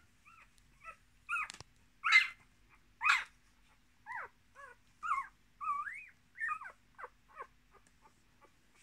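Newborn miniature Australian Shepherd puppies squealing and whimpering: a string of about a dozen short, high, sliding cries, the loudest two coming a couple of seconds in.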